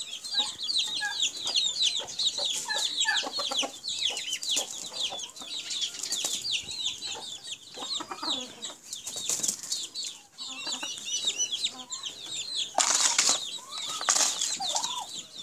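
A flock of chickens, with an occasional cluck and a constant busy high-pitched chirping throughout. A short loud rustle comes near the end.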